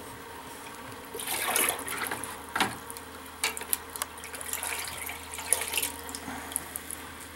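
Water splashing and sloshing in a galvanized steel bucket as a freshly parkerized steel box is dunked and swished in cold rinse water, starting about a second in, in irregular splashes.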